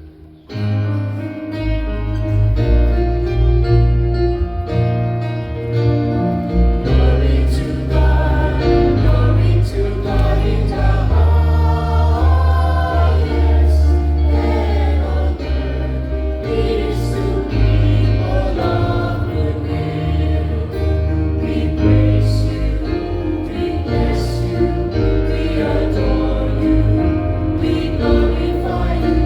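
Church choir singing a hymn, with held low bass notes underneath. After a brief dip at the very start, the music comes back in under a second.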